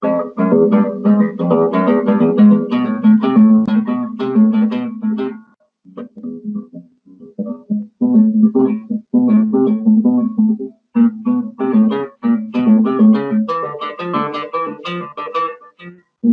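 Classical nylon-string guitar played fingerstyle as a solo piece, a quick run of plucked notes. It starts suddenly, thins to a few scattered notes for a couple of seconds about five seconds in, then picks up again.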